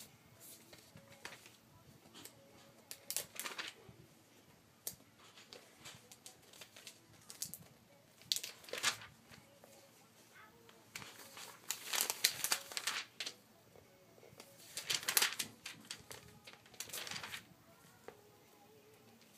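Glossy magazine pages being turned by hand, paper rustling and swishing in short separate bursts several times over, the longest and loudest turns a little past the middle.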